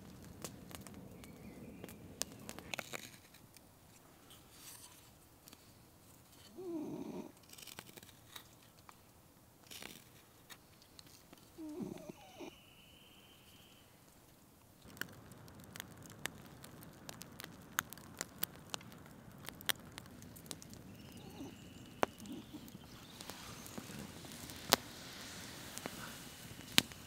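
A dog snoring in its sleep, with a drawn-out snore twice, about five seconds apart. About halfway through, a knife whittling a wooden spoon takes over: a run of sharp clicks and scrapes of the blade on the wood.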